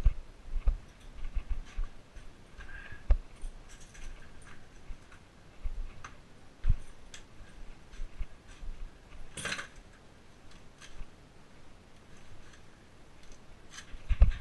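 Irregular clicking and rattling of a GoPro Hero camera that has worked loose in its helmet mount, jostled as the wearer moves, with soft low thumps. A louder clatter comes about nine and a half seconds in.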